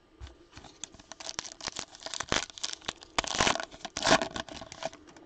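Trading-card pack wrapper being torn open and crinkled by hand: a run of crackling rustles starting about a second in and lasting about four seconds.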